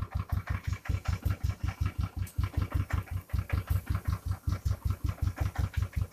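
Royal Enfield Thunderbird 350's single-cylinder four-stroke engine idling just after a cold kick start, a steady low thump about seven times a second. Its running is quirky and not so smooth, as if about to choke, typical of an engine still cold.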